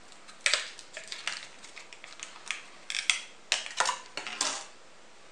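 Clear plastic clamshell of a boxed CPU being pried open and handled: a string of sharp plastic clicks and crackles, loudest about half a second in and again between three and four seconds in.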